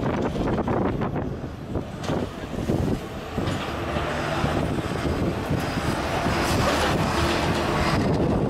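Mini excavators' diesel engines running under a steady rumble, with a few clanks of stone and metal in the first two seconds.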